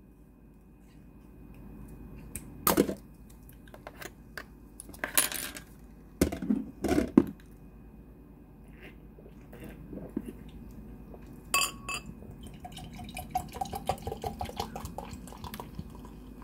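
Glass bottle of Bundaberg Tropical Mango sparkling drink handled with a few knocks, clinks and a short hiss. Then, for the last few seconds, the soda is poured from the bottle into a wine glass, splashing with a pitch that rises as the glass fills.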